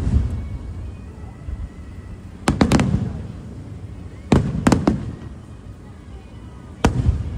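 Aerial fireworks shells bursting: sharp bangs that come singly and in quick clusters, each followed by a low rolling rumble. There is one bang at the start, a rapid group of three about two and a half seconds in, two more a little later, and a last one near the end.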